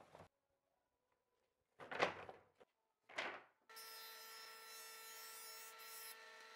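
Two short wooden knocks as pallet boards are set down on a wooden workbench. Then, a little past halfway, a combination jointer-planer starts sounding: a steady machine whine made of several fixed tones over a hiss.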